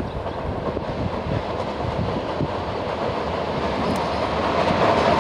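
Electric multiple-unit passenger train passing on the rails with a steady rumble of wheels and running gear, growing louder as it comes closer.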